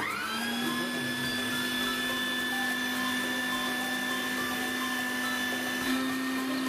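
Electric meat grinder starting up, its motor rising quickly to a steady pitch and then running evenly as it grinds boiled beef and spices pushed down the feed tube.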